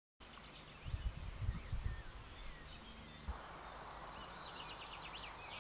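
Meadow ambience with small songbirds chirping and singing in short notes. There is irregular low rumbling on the microphone for the first couple of seconds, and a steady hiss joins about three seconds in.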